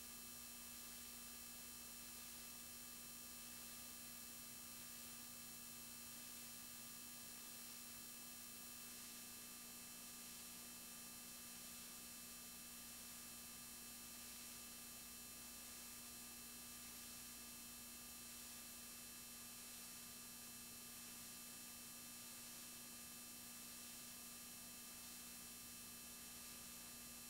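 Near silence: a faint steady hum and hiss from a VHS tape's blank audio track.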